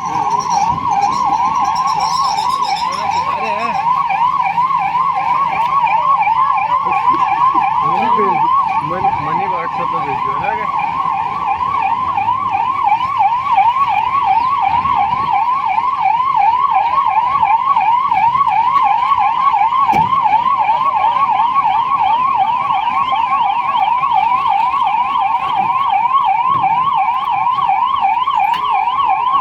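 Ambulance siren sounding continuously in a fast rising-and-falling yelp, a few sweeps a second.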